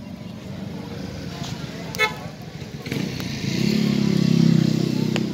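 A motor vehicle engine running close by, growing louder from about three seconds in over steady street noise, with a brief rattle about two seconds in.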